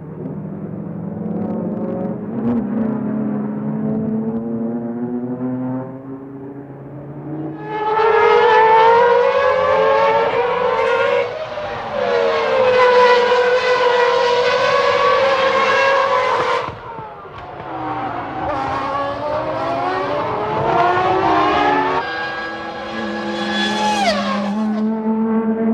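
3-litre Formula One racing car engines at high revs, their pitch rising and falling through gear changes, with abrupt changes from one car or shot to the next. The sound is quieter for the first few seconds, then much louder, and one engine's pitch drops sharply near the end.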